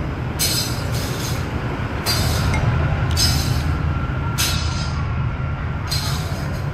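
Rice noodles being slurped from a bowl of chicken pho: about six short, hissing slurps in a row, over a steady low rumble.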